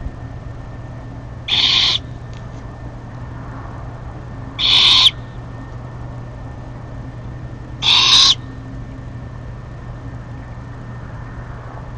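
Great horned owlets giving three short, harsh screeches about three seconds apart: the begging calls of young owls being fed.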